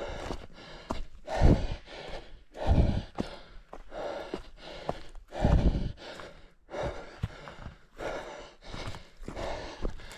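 A runner's heavy breathing close to a head-mounted camera, with running footfalls and a few heavier thuds.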